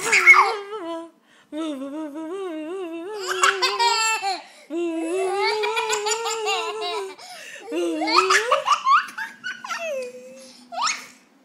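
A toddler laughing hard in several long, pulsing peals with short breaks between them, and a brief last burst near the end.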